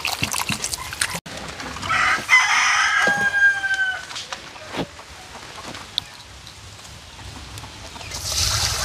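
A farmyard fowl's call, about two seconds long, dropping in pitch at its end. A few light knocks come before it.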